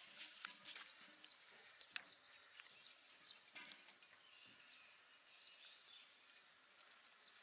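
Very faint, scattered ticking and patter of wheat grain falling from a raised basket onto a cloth sheet during hand winnowing, with one sharper click about two seconds in.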